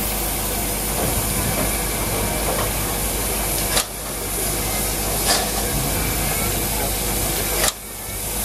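Steam tank locomotive 75 1118 hissing steam, a steady loud hiss with two sudden dips in level, a little before halfway and near the end.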